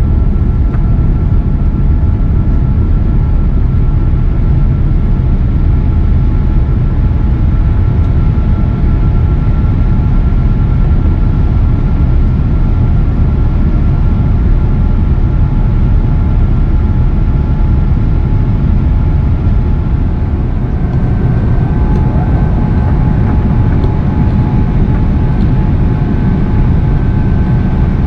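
Steady, loud rumble of an airliner's engines and airflow heard inside the cabin beside the wing, with a thin steady whine that steps up a little in pitch about three-quarters of the way through.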